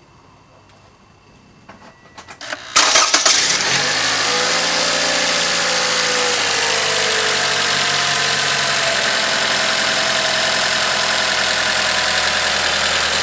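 Toyota 2AR-FE 2.5-litre four-cylinder engine started: a few clicks and a brief crank, then it catches about three seconds in, flares up in speed and settles over several seconds into a steady idle.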